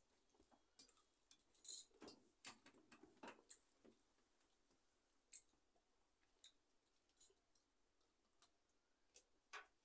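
Faint scattered clicks and light metallic clinks of a hand mixing rice on a steel plate while eating with the fingers. The clicks are loudest in a cluster about two seconds in, then sparse, with two sharper clicks near the end.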